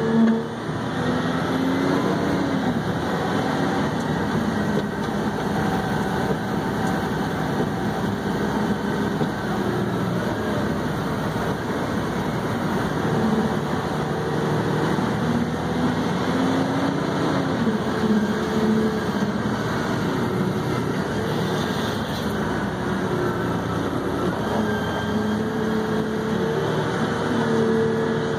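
Haul truck's diesel engine running as the truck drives over rough dirt, heard from inside the cab, its pitch rising and falling with the throttle.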